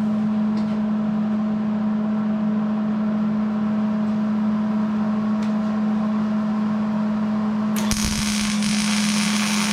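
Welding machine humming steadily, then about eight seconds in a welding arc crackles and hisses for about two seconds as a tack weld is laid on the steel railing.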